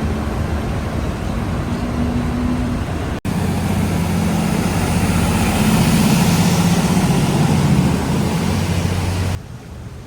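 Road traffic running on a busy roundabout. Then, after a cut about three seconds in, a riverboat's engine runs loud and steady as the boat passes, loudest around six to eight seconds in, and it cuts off just before the end.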